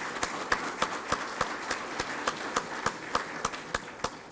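Audience applauding a graduate, with one person's sharp claps close to the microphone standing out at about three or four a second over the crowd's clapping; it dies away at the very end.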